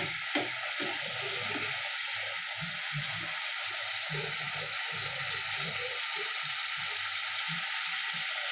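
Masala (spice paste with bay leaves) frying in oil in a pan: a steady sizzle with irregular bubbling pops, the paste being fried until the oil separates.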